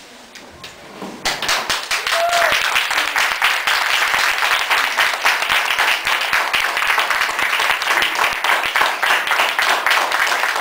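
Audience applauding: a crowd of hands clapping, which starts about a second in and then holds steady.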